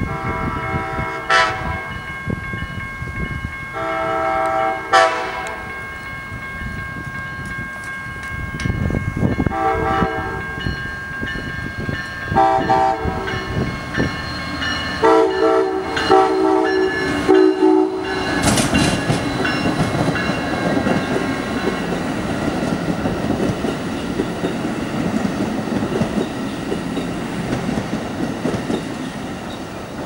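Amtrak locomotive horn sounding a series of chord blasts for a road crossing, the last blast held long and dropping in pitch as the locomotive passes about 17 seconds in. After that come the steady rumble and clickety-clack of the passenger cars rolling by.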